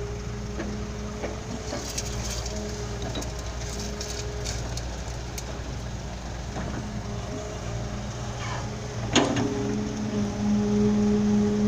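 A heavy diesel engine running steadily with an even hum. Light clicks come between about two and five seconds in, then a single sharp knock about nine seconds in, after which the engine gets a little louder.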